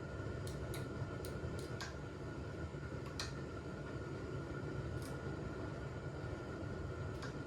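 Scattered light clicks of small metal parts being handled while a chainsaw piston and wrist pin clip are fitted, over a steady low hum. The clicks come in a quick run in the first two seconds, then singly about three, five and seven seconds in.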